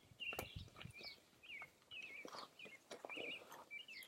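Small birds chirping and warbling faintly in short, repeated phrases, with a few soft knocks.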